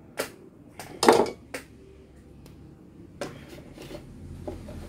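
Hard plastic slow-juicer parts, the clear juice bowl and the strainer baskets, knocking and clacking against each other and the desk as they are handled: a handful of short, sharp knocks, the loudest about a second in.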